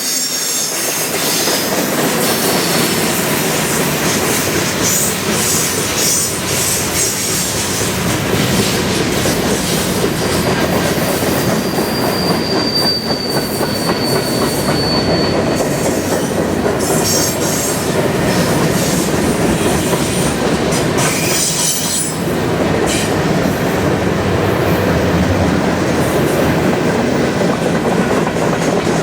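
Freight cars of a long CN train rolling past on a curve: steady wheel-on-rail noise, with a thin, high wheel squeal for a few seconds near the middle.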